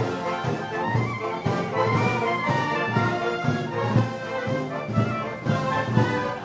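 Brass band playing Moros y Cristianos festival music, with trumpets and trombones over a steady drum beat of about two beats a second.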